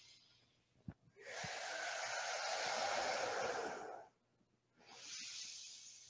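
A man breathing deeply: one long breath of about three seconds, then a shorter, softer breath near the end.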